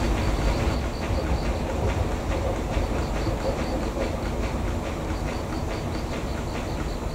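Small diesel rail switcher running slowly in a yard: a steady low engine rumble with irregular clatter of wheels on the track.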